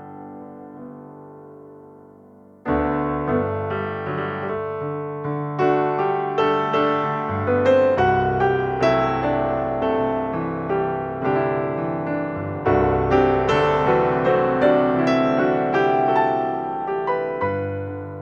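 Background piano music: a chord fades out over about the first three seconds, then a steady run of struck notes continues.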